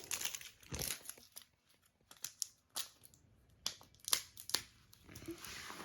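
Plastic Play-Doh tubs and their packaging being handled and opened: a scattered series of short clicks and crinkles, several in quick succession around the middle.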